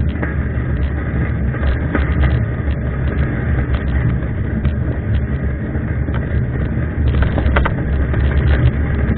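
Steady rush of wind buffeting the camera microphone while mountain biking, with scattered clicks and rattles from the bike on the trail.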